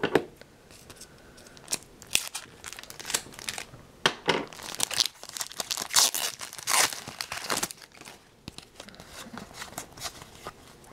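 Glossy wrapper of a hockey trading-card pack being torn and crinkled open, in irregular crackly bursts.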